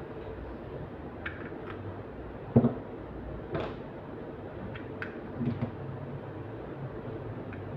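Scattered light clicks and knocks from a plastic car smart key fob being handled during a coin-cell battery change, the loudest about two and a half seconds in. A steady low hum runs underneath.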